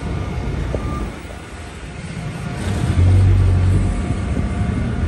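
Low, steady rumble of a passenger train on the station tracks. About three seconds in, a brief louder low rumble that lasts about a second.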